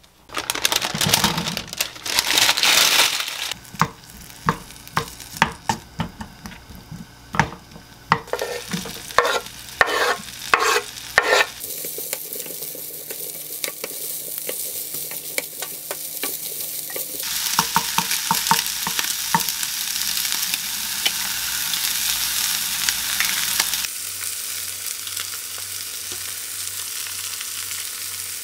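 Diced ham and chopped green onion sizzling in a frying pan while being stirred, with clicks and knocks of the utensil against the pan in the first ten seconds or so. After that comes a steadier frying sizzle with occasional stirring clicks, and near the end an egg frying in the pan.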